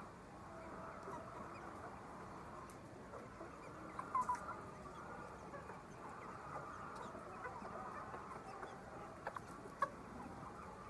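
A flock of chickens clucking and chirping together in a steady, dense din, with a few sharp clicks about four seconds in and again near the end.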